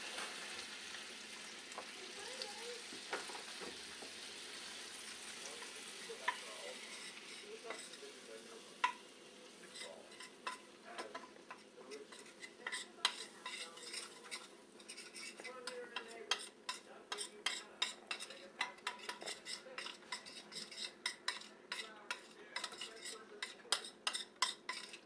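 Flour being stirred into melted butter in a pan to make a roux. A steady sizzle at first, then a utensil scraping and clicking against the pan more and more rapidly through the second half as the mixture is worked together.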